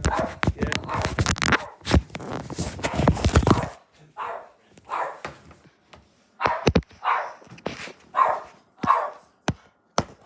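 Loud rustling and scraping for the first few seconds, then a dog barking repeatedly in short single barks, about one or two a second, with a few sharp clicks in between.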